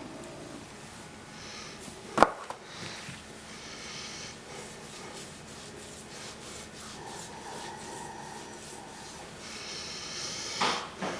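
VHS tape and its case being handled: low rubbing and scraping, with one sharp click about two seconds in and a louder rustle near the end.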